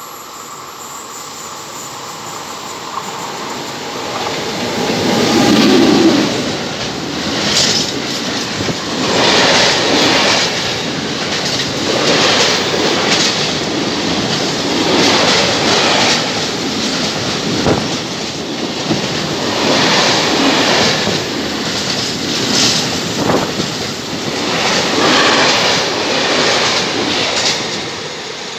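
A freight train of container wagons hauled by an FS E652 electric locomotive passes close by. It grows louder over the first six seconds as the locomotive arrives. The wagons then rumble and clatter past, with surges of wheel noise every couple of seconds, often in close pairs, as the bogies go by.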